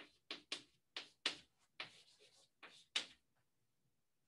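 Chalk writing on a blackboard: a quick run of sharp taps and short scratchy strokes as letters are written, stopping about three seconds in.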